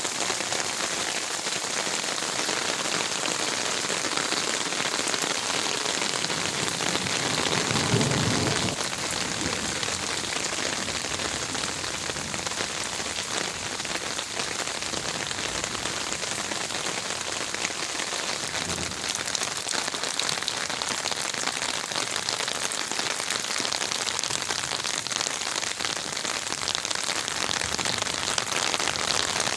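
Heavy rain falling steadily on garden leaves, a dense even patter, with a brief low thump about eight seconds in.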